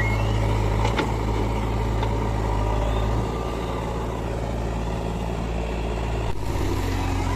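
Heavy diesel engine of a backhoe loader or tractor running steadily. Its low note shifts abruptly a few times, and there is a single sharp click about a second in.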